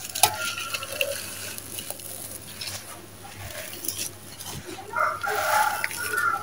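Dry sand-cement chunks crushed and crumbled by hand: gritty crunching and crackling with loose powder sifting down. A loud pitched call sounds in the background from about five seconds in.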